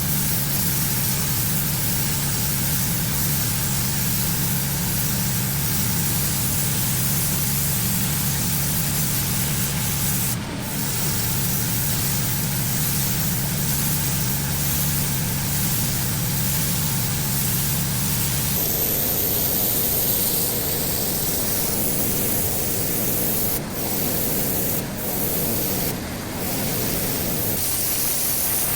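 Pressure washer running: a steady engine hum under the hiss of high-pressure water spraying on a driveway. About two-thirds of the way through, the hum fades behind a broader spray hiss, and the spray breaks off briefly a few times.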